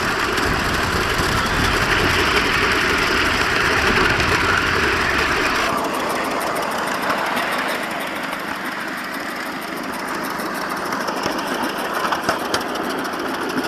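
Miniature live-steam locomotive running at speed on a raised ride-on track: rapid exhaust beats and wheels on the rails. The low rumble drops away abruptly about six seconds in, leaving a lighter running sound with a few clicks near the end.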